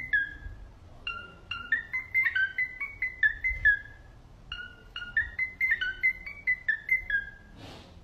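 Cockatiel whistling a tune: two runs of short, clear notes stepping up and down in pitch, with a pause of about a second between them, then a brief hiss near the end.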